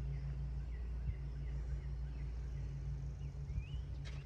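A few faint, short songbird chirps over a steady low hum.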